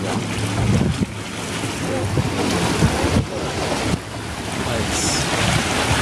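Motorboat crossing river rapids: the engine runs steadily under rushing, churning water, with wind buffeting the microphone.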